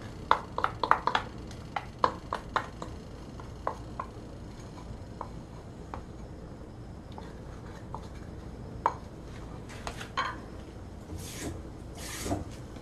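A small porcelain bowl clicking and tapping against a pan as thick sauce is tipped and pressed out of it onto dried squid strips: a quick run of sharp clicks in the first few seconds, then scattered ones. Two short hissing swishes come near the end.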